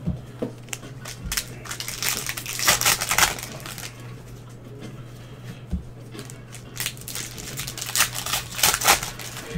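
Trading cards and pack wrappers handled with gloved hands: crinkling and rustling in two bouts, each a second or so long, with light clicks of cards between.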